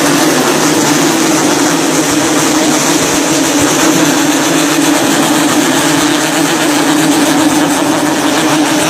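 Many Yamaha RX-King two-stroke single-cylinder motorcycles running and revving together, blending into one loud, steady, buzzing din with no break.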